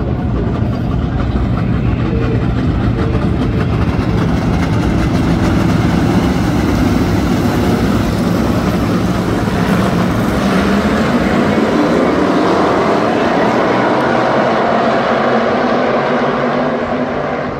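A pack of USRA stock cars, with V8 engines, running together around a dirt oval. The engine notes overlap and slide up and down in pitch as cars go past.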